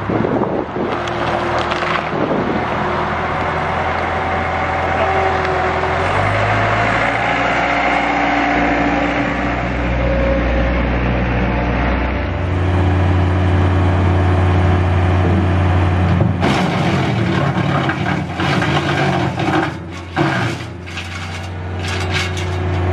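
Caterpillar 226 skid-steer loader's diesel engine running, its pitch and load shifting a couple of times, driving a Farmer Helper wood chipper attachment. From about two-thirds of the way in, branches crack and splinter as the chipper chews through them.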